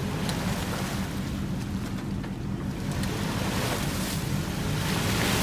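Lifted four-wheel-drive Nissan Xterra's engine running steadily as it creeps through deep mud, with wind noise on the microphone.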